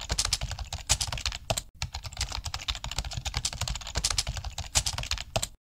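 Keyboard typing sound effect: a fast, irregular run of key clicks that stops abruptly near the end.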